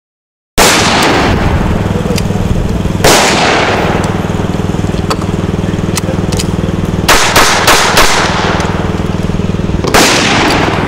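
Semi-automatic pistol shots, each a sharp crack with a ringing tail: one about half a second in, another about three seconds in, a quick string of four at around seven to eight seconds, and one more near the end. A steady low hum runs underneath.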